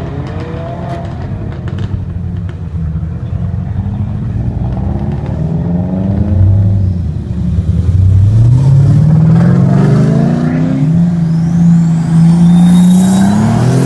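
Supercar engine accelerating away, its note climbing steeply in pitch over a few seconds, holding high and loud, then dropping off near the end.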